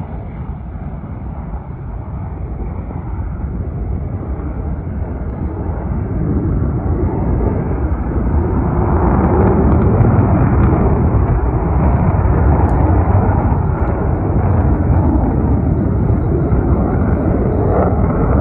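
Aircraft flying overhead, its engine noise growing steadily louder over about the first ten seconds and then holding.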